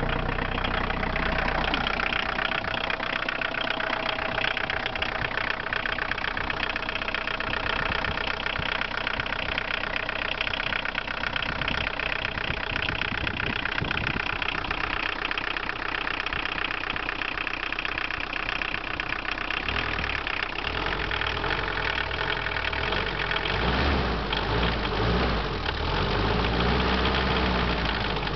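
1981 Isuzu I-Mark four-cylinder diesel engine idling just after a cold start, with the steady clatter of diesel injection. Near the end the engine speed wavers up and down a little.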